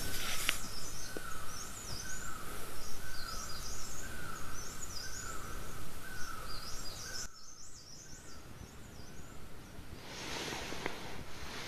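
Birds singing at dawn: one repeats a short slurred note about once a second while others twitter in high, quick phrases. About seven seconds in the birdsong stops, leaving a quieter steady background hiss.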